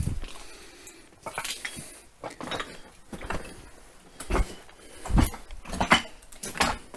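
Footsteps crunching over loose broken rock and rubble: about seven uneven steps, the heaviest in the second half.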